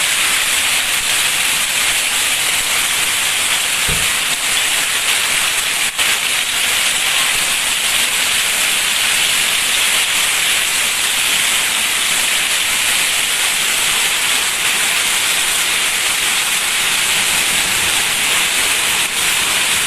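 Heavy rain and hail falling in a summer hailstorm: a dense, steady hiss.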